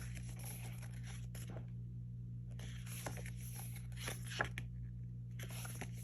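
Album photobook pages being turned and handled: paper rustling and sliding in three bursts, with a few light taps, over a steady low hum.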